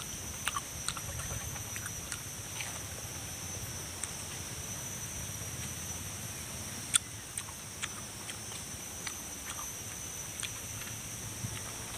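Close-up chewing of a mouthful of raw pineapple, with scattered wet clicks and crunches, the sharpest about seven seconds in. A steady high insect drone runs underneath.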